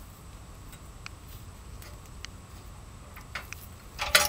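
Light metal clicks of a deep socket, adapter and breaker bar being fitted onto a rusted exhaust nut, a few scattered at first, then a quick cluster of louder clicks near the end.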